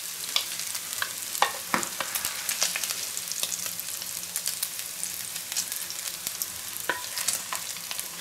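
Bacon sizzling and crackling in hot clarified butter in a pan, with a wooden spatula stirring and knocking against the pan a few times, most sharply in the first two seconds.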